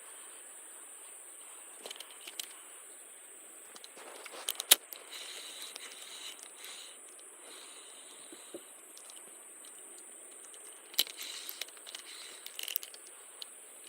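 Fishing gear being handled: scattered sharp clicks, rattles and scrapes over a steady background hiss, with the loudest click about a third of the way in.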